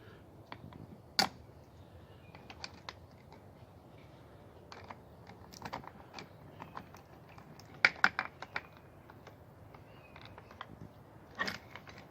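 Scattered light clicks and taps of metal hardware being handled as the tilt pin and its nut are fitted to an outboard motor's transom clamp bracket, with a small cluster of sharper clicks about two-thirds of the way through.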